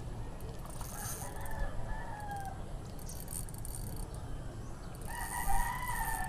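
A rooster crowing: a fainter crow about a second in, then a louder, longer crow near the end.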